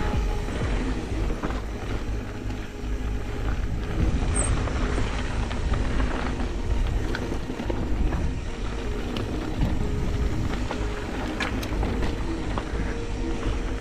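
Mountain bike ride down a dirt trail: heavy wind rumble on the microphone over the rolling noise and rattle of the bike, with a few sharp clacks.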